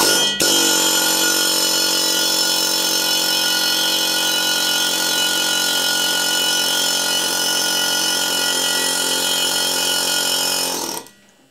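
Short-stroke pneumatic air hammer, its air regulator turned right down, running steadily to drive a sizing ball through a valve guide liner. It falters briefly just after it starts, then runs evenly for about eleven seconds and cuts off suddenly.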